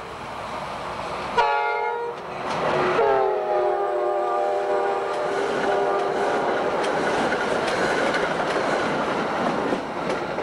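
New Jersey Transit ALP-44 electric locomotive sounding its multi-tone air horn, a short blast about a second and a half in and then a longer one of about three seconds that dips slightly in pitch. Then comes the steady noise of its passenger coaches rolling past on the rails.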